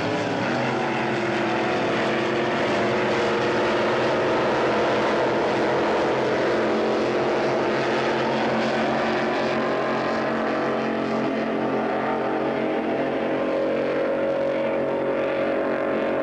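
Racing powerboat engines running hard at speed, a steady, unbroken multi-tone drone; a higher engine note grows stronger near the end.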